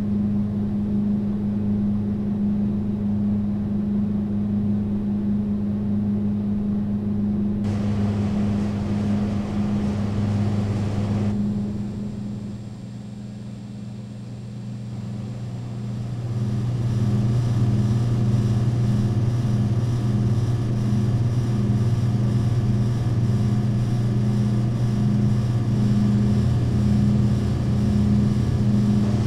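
Steady electrical hum and drone of drink vending machines' refrigeration and lighting, layered low hum tones. About eight seconds in a hiss joins and drops out again, the drone dips quieter around twelve seconds, then swells back louder with a regular pulsing throb.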